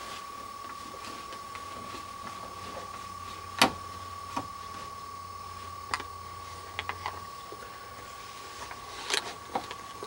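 Hand screwdriver working a screw in a metal door strike plate: scattered sharp clicks of steel on the screw and plate, the loudest about three and a half seconds in, over a steady high-pitched tone.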